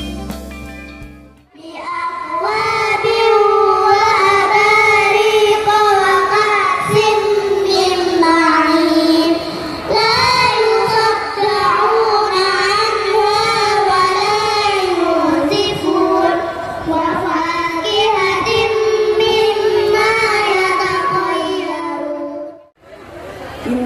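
A high voice singing a long, wavering melodic line. It starts about a second and a half in, pauses briefly around ten and sixteen seconds in, and stops shortly before the end.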